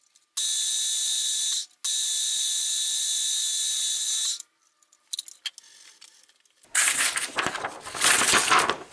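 Milling machine spindle running with a twist drill in its drill chuck, drilling into a small metal part held in the vise: a steady high-pitched whir in two stretches that each start and stop abruptly, the second lasting about two and a half seconds. A few light clicks follow, then a paper drawing rustles near the end.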